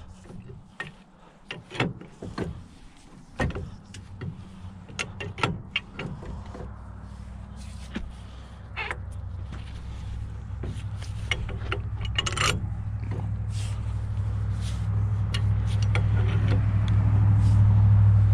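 Pipe wrench clinking and knocking against the steel parts of a hydraulic cylinder rod as it is set and turned, in short separate strikes. Under them an engine drone sets in around halfway and grows steadily louder toward the end, becoming the loudest sound.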